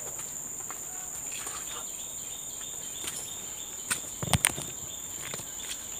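Steady high-pitched insect drone, with a hiker's footsteps on a muddy trail and two sharp knocks about four seconds in, the loudest sounds.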